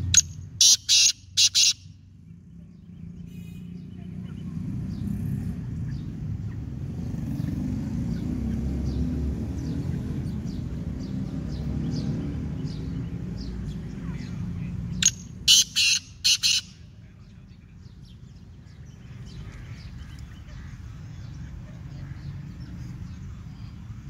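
Black francolin calling twice, each call a quick run of about four loud notes lasting under two seconds: the first right at the start, the second about fifteen seconds in. A steady low rumble runs underneath.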